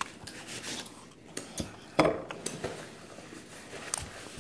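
A crisp meringue pastry being bitten and chewed close up: irregular sharp crunches and crackles, the loudest about two seconds in, with a lip-smacking finger lick near the end.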